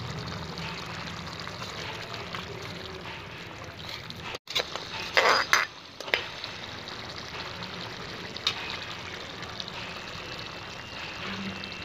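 Cauliflower and potato curry bubbling as it simmers in a metal pan. About five seconds in, a spoon scrapes and clinks against the pan in a short, loud burst, and a couple of single clicks follow.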